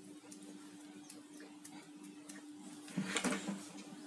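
Low-level handling noise over a steady low hum: a few faint clicks of small parts on the desk, then a louder rustle and scrape about three seconds in as the grey cable with its orange and white wires is picked up and handled.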